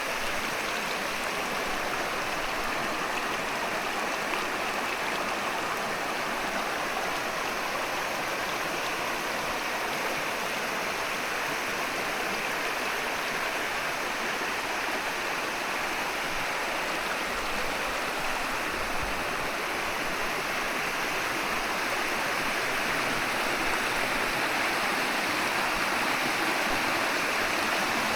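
Steady rush of flowing water from a mountain stream or cascade, getting slightly louder near the end.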